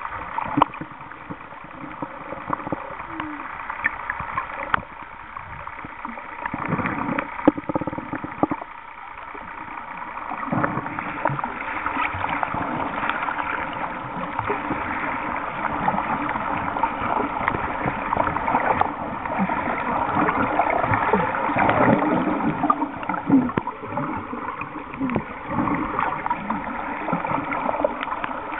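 Muffled underwater noise picked up by a submerged camera: a continuous rush and gurgle of water with many small clicks and knocks scattered through it, growing louder from about a third of the way in.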